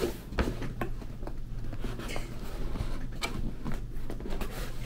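Cardboard gift boxes being folded and assembled by hand: scattered short rustles, scrapes and taps of stiff card flaps being creased and tucked.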